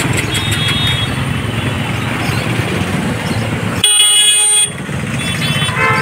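Street traffic with motor vehicle and motorcycle engines running, and a vehicle horn blaring briefly about four seconds in, then a second horn near the end.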